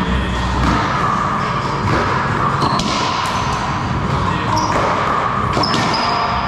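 One-wall racquetball rally: the ball cracks off the wall, floor and racquets in several sharp irregular hits starting about two seconds in, with a few short sneaker squeaks, over a steady hum from the gym's wall fans.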